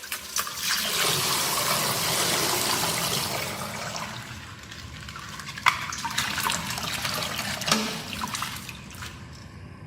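Plastic toy packaging crinkling and rustling as a toy figure is unwrapped, with a few sharp clicks and crackles along the way.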